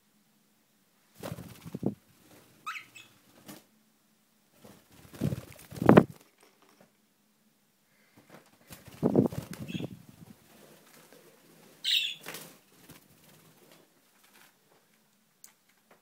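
Pet budgerigars' wings flapping in four short bursts as they take off and fly, with a couple of brief chirps.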